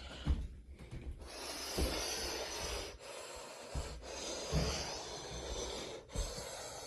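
Water running in a bathroom, a steady spray hiss that starts about a second in, with a few dull knocks over it.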